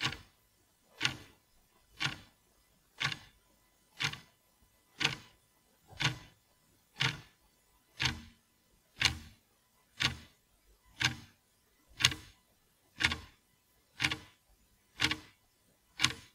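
Quartz hour meter ticking steadily, one sharp tick each second.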